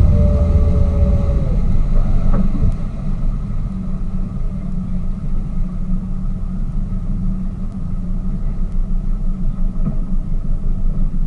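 Tour boat's engine running with a steady low rumble, its pitch falling over the first second and a half as it throttles down.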